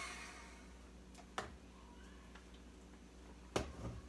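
Electric hand mixer spinning down as it is switched off, then quiet with a few sharp clicks and knocks: one about a second and a half in and a couple near the end, as the mixer and plastic bowl are handled.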